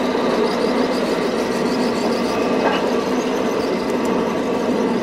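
Model passenger train rolling along the layout track: a steady whirring hum of wheels and drive, with faint quick clicking of wheels on the rails.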